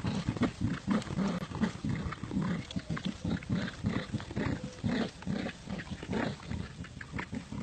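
Dogs growling in play over a tug-of-war toy: a fast string of short, rough growls, several a second.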